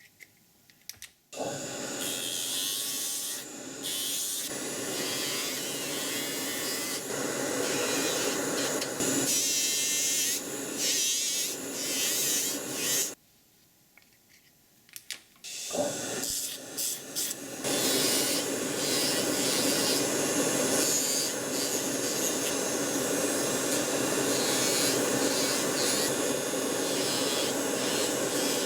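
A small power tool runs against a workpiece, its sound shifting as it works. It starts about a second in, stops for two or three seconds around the middle, then runs on more steadily.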